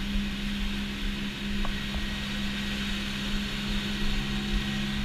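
Wakeboard boat's inboard engine running at a steady speed under way, a constant low hum under a steady rushing hiss of water and wind.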